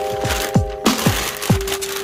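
Background music with a steady kick-drum beat under held electronic keyboard notes.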